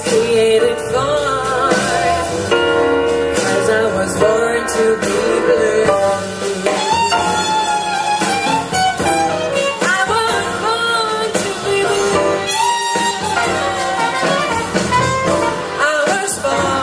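Live small jazz band playing: a trumpet lead line over piano, double bass and guitar accompaniment.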